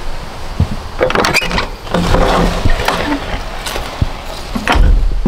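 Iron lever latch on a wooden door being worked and the door opened: a few sharp clicks and knocks, a brief creak about two seconds in, and a low bump near the end.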